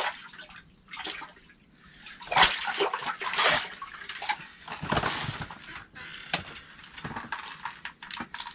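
Water splashing and sloshing in a hole in the ice as a walleye is lifted out by hand, in several separate bursts.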